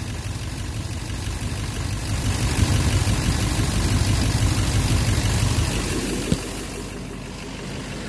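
Duramax LMM 6.6-litre V8 turbo-diesel idling steadily, heard close up from beneath the engine, during a test for a knock in which injector connectors are being unplugged one at a time. A single sharp click sounds about six seconds in.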